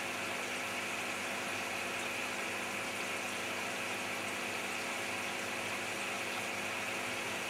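Steady hum and hiss of running aquarium filtration equipment, unchanging throughout.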